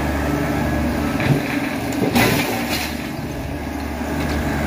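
Compact tractor engine running under load as its front-loader bucket pushes into a brick wall. Just after two seconds in comes a sharp crack, then a second, weaker one, as the wall breaks up.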